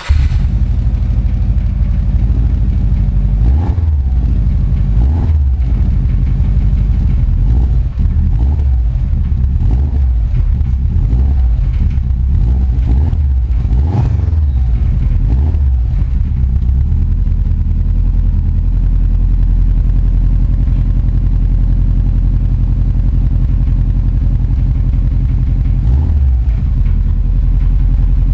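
Subaru Forester XT's turbocharged flat-four boxer engine starting up through an aftermarket exhaust, then blipped in a series of short revs. It settles to a steady low idle, with one more quick rev near the end.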